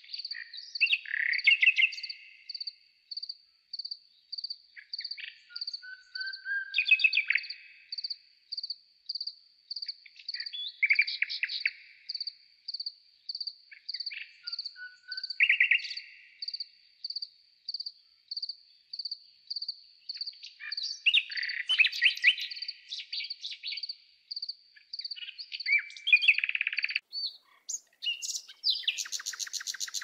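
Garden songbirds singing short warbling phrases every few seconds over a steady high chirp repeated about twice a second. The fullest, loudest burst of song comes near the end.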